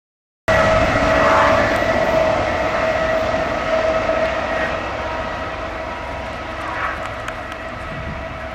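Diesel freight locomotive and its train rolling away on a curved track, a steady high whine running through the rumble, slowly fading. The sound cuts in suddenly about half a second in.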